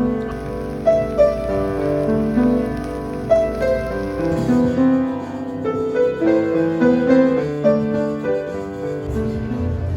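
Background music: a gentle piano melody with held notes.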